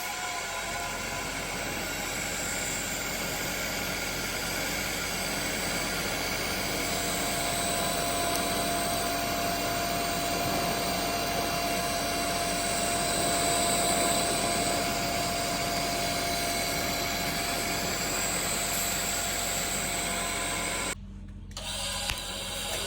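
TIG welding arc on a steel exhaust pipe: a steady hiss and hum, with a faint steady tone through the middle, that cuts off near the end.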